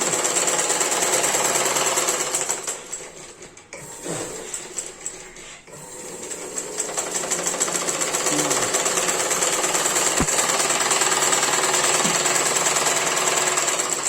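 Sewing machine driven by a Whirlpool washing-machine motor through a belt of joined cable ties, running with a rapid, even needle-and-mechanism clatter. The clatter drops off for a few seconds about three seconds in, then picks up again and runs steadily.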